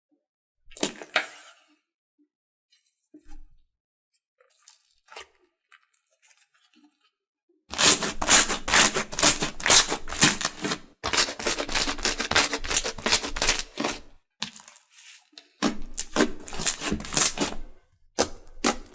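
Slime being squeezed and pulled apart by hand close to the microphone: a few scattered clicks, then two long runs of rapid crackling and popping.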